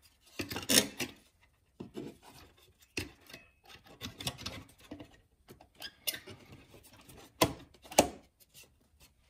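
Hands refitting the engine air filter housing and its clips: scattered clicks and knocks with scraping and rubbing between them. The sharpest knocks come about a second in and twice near the end.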